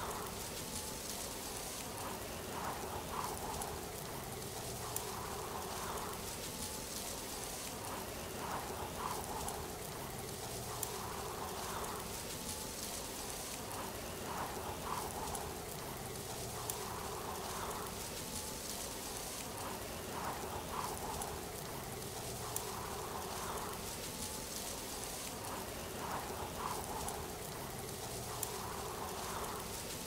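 Looped ambience of steadily rushing falling water with a faint recurring chirp. The loop repeats about every six seconds, with a small click at each repeat.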